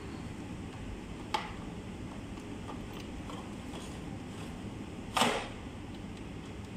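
Ericsson rectifier module being slid into its shelf slot by hand: a sharp click a little over a second in, a few faint taps, then a louder short scrape and clack a little after five seconds as the module is pushed in. A steady hum runs underneath.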